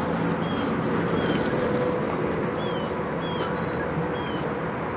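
Steady outdoor rumble of vehicle noise, with a short high chirp repeating about once a second.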